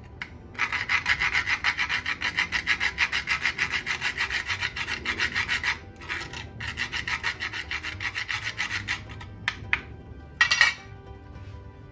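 Whole nutmeg being grated on a fine metal rasp grater: quick, even scraping strokes in two runs with a short pause between, then a brief louder noise near the end.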